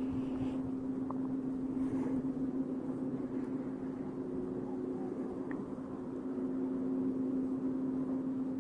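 Steady low-pitched droning hum holding one unchanging tone over a rumbling noise. It is of unknown origin, an abnormal heavy noise that sounds like machinery in a factory.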